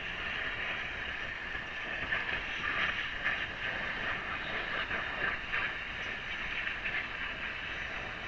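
Oxy-acetylene torch flame hissing steadily, surging a little now and then, as it heats a seized CV axle nut to break it loose.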